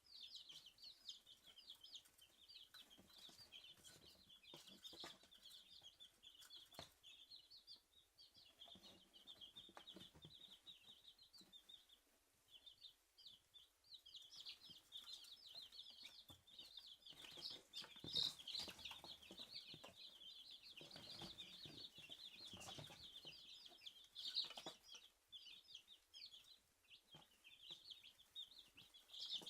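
A brood of three-day-old Dominique chicks peeping without pause: many short, high peeps overlapping, with a few soft taps now and then.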